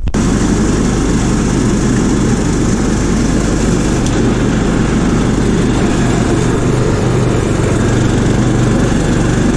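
Riding lawn tractor's 20 horsepower Kohler engine running steadily under load, with the mower deck engaged and cutting grass.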